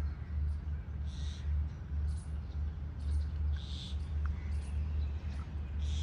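Wind buffeting the microphone in an uneven low rumble, with a few faint bird chirps and soft hissy rustles over it.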